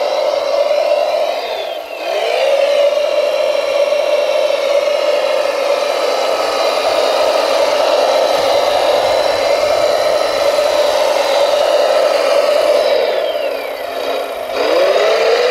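RC model Volvo L250G wheel loader's electric drive whining steadily, sagging in pitch and level about two seconds in and again near the end as it slows, then winding back up.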